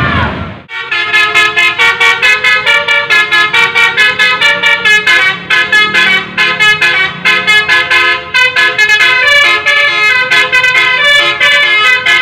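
Bus telolet 'Basuri' multi-tone horn playing a fast melody of short, clear notes, several a second, that keeps going. A burst of street noise cuts off sharply just before the horn starts.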